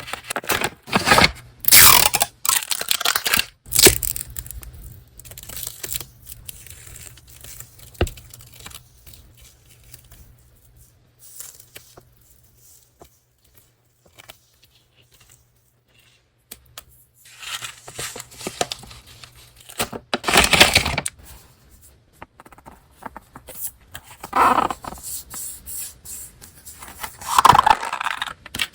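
Paper packaging being torn open and handled, in several bursts of ripping and rustling with a quiet stretch in the middle.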